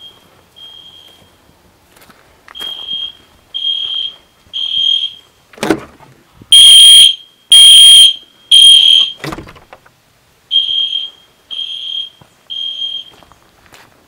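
Edwards Genesis fire-alarm horn/strobe sounding the temporal-three (Code-3) evacuation pattern: three short, high-pitched horn blasts about a second apart, a pause, then three more, repeating. One round in the middle is much louder than the rest, with a thump just before and just after it.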